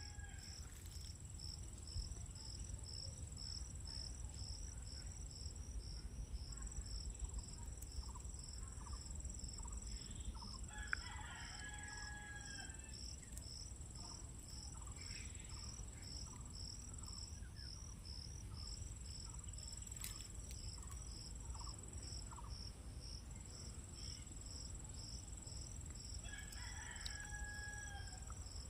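Insects, crickets, chirping in a steady pulse about three times a second over a continuous high trill, with a low rumble underneath. A rooster crows twice, about a third of the way in and again near the end.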